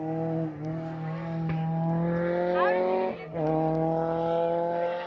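Rally car engine pulling hard at high revs, its pitch climbing through the gears with two short breaks for gear changes, about half a second and three seconds in. It fades near the end.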